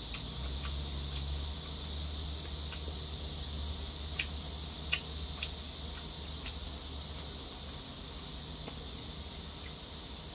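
Eating sounds of noodles being chewed, with a few short mouth smacks and clicks near the middle, over a steady high hiss and low hum.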